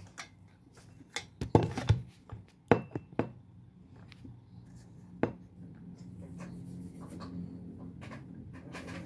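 Handling noise from a handheld phone: a run of sharp knocks and rustles, then a single knock, followed by a steady low hum.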